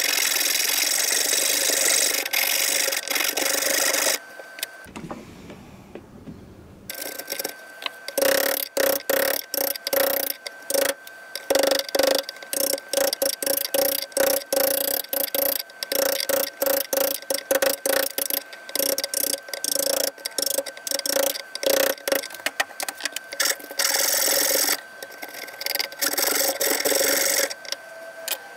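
A hand rasp and a wide chisel scraping and paring cypress wood, mostly in a long run of quick short strokes. A few seconds in there is a quieter lull of a few seconds.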